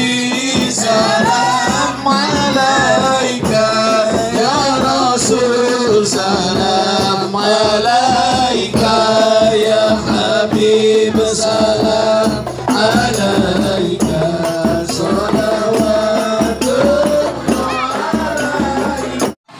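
A group of children singing an Arabic sholawat in unison to a hadrah ensemble of rebana frame drums and small hand drums beaten in a steady rhythm. The music cuts off abruptly just before the end.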